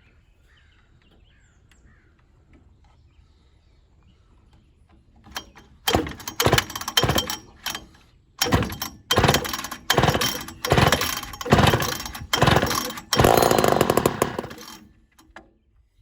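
Ported Poulan 245A two-stroke chainsaw being pull-started: after a few quiet seconds the engine fires in a rapid string of short loud bursts, about two a second with a brief break, then runs for a couple of seconds and cuts out.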